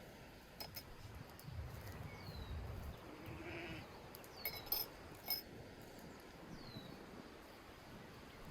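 A goat bleats once, briefly, about three seconds in. Two sharp clicks follow a second or so later, louder than the bleat, and a few short falling chirps sound now and then.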